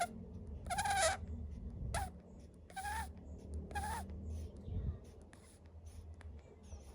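Monkey snoring in its sleep: short breathy snores with a squeaky whistle in them, about one a second, growing fainter after the first four seconds.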